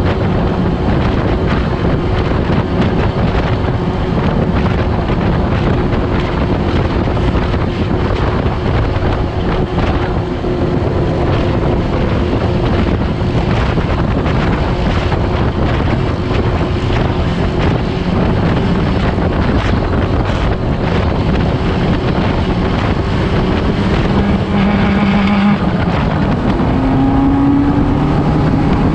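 Dune buggy engine running at road speed, with heavy wind rush on the microphone. Near the end the engine note climbs as the buggy speeds up.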